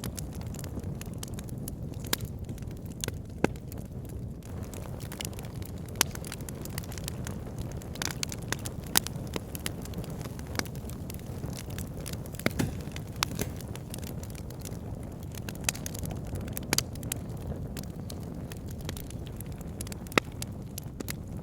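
Wood fire in a log burner crackling, with a steady low rumble of the flames and frequent sharp, irregular pops from the burning logs.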